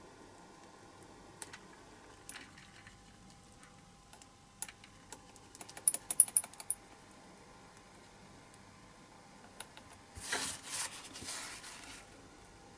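Light clicks and taps of a wooden stick against a small jar and the small model wheels inside it, with a quick run of sharp ticks about halfway through, then a short rustle of a paper towel near the end.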